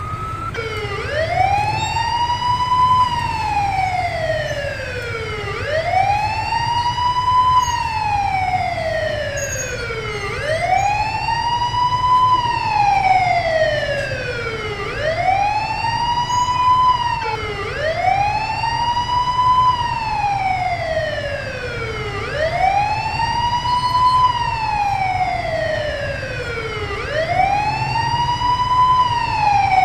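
Fire truck siren wailing, each cycle rising over about two seconds and falling more slowly, repeating about every four and a half seconds, over a steady low rumble.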